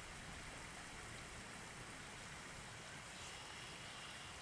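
Steady low hiss of background noise, even throughout, with no distinct handling clicks standing out.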